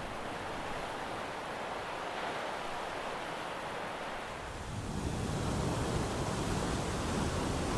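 Steady rushing noise of wind and sea water, growing a little louder about five seconds in.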